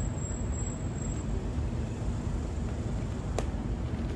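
Steady low outdoor rumble, with a single sharp click about three and a half seconds in as a lidded plastic drink cup is handled.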